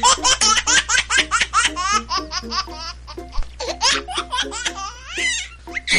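High-pitched laughter in rapid short bursts, about six to eight a second, over background music with short repeated notes.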